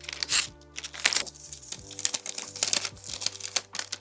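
Parchment paper crinkling and crackling under a wooden rolling pin as tart dough is rolled out between two sheets, an irregular run of quick crackles with louder ones about a third of a second and a second in.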